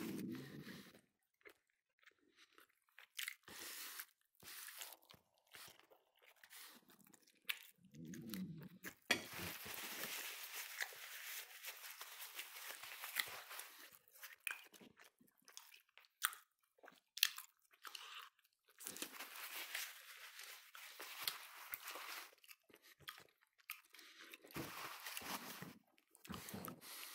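A person eating baked chicken by hand off the bone: biting, chewing and crunching in irregular spells with short pauses between.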